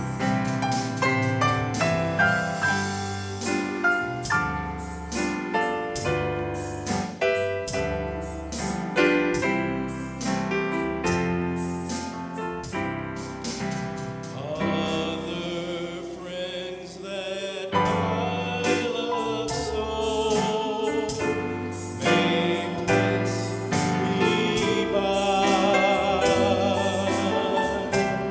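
Church choir and a lead singer on a microphone singing a gospel hymn with piano accompaniment. Struck piano chords stand out in the first half, and about halfway through held, wavering choir voices come to the front.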